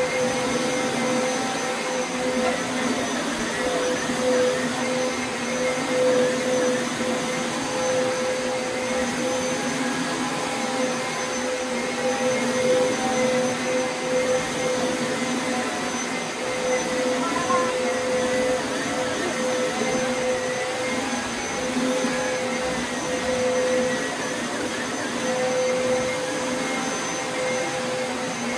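Upright carpet shampooer running without a break: a steady motor whine over suction and brush noise, wavering slightly as it is pushed back and forth, sped up to three times normal speed.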